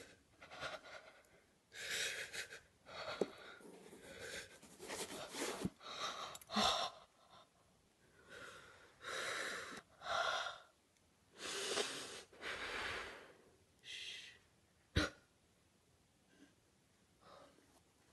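Irregular soft rustling and handling noises as a microphone, its shock mount and the foam-lined case are picked up and moved, with one sharp knock about fifteen seconds in.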